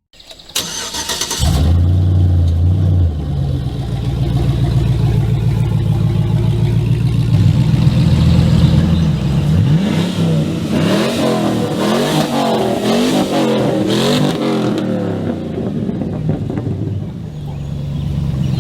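A vehicle engine starts about a second in and runs at a steady idle, then is revved hard several times from about ten seconds in, its pitch rising and falling.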